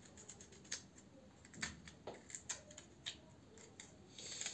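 Utensil scraping and cutting into a hard black radish to hollow it out: a series of irregular light clicks and scrapes, a few with a short ring.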